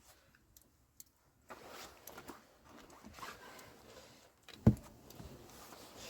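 Faint rustling and handling noise with a few small clicks, and one sharp knock about three quarters of the way through.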